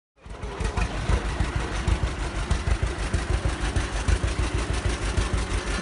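John Deere Model A two-cylinder tractor engine running with a steady, evenly pulsing exhaust beat, cutting in abruptly just after the start.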